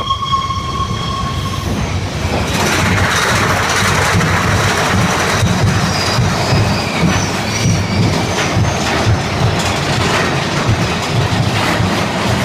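Mine-train roller coaster cars running along the track: a continuous rattling rumble with dense clacking from the wheels and brief high wheel squeals. A short steady tone sounds at the start.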